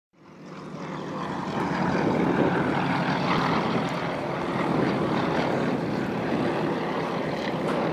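Propeller airplane engine running steadily, fading in at the start.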